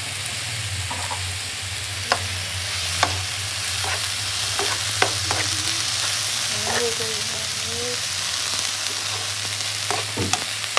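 Potato, cabbage and spring onion sizzling in hot oil in a non-stick frying pan, a steady hiss. A stirring utensil knocks against the pan now and then, a few sharp taps.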